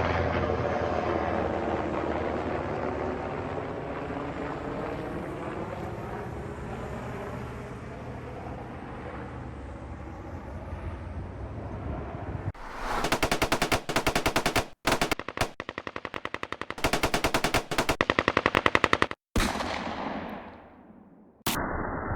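Helicopter attack sound effects: a steady rotor-and-engine drone with a sweeping, phasing quality that slowly fades, then about halfway through three long bursts of rapid automatic machine-gun fire, followed by a fading rumble and a sudden steady noise just before the end.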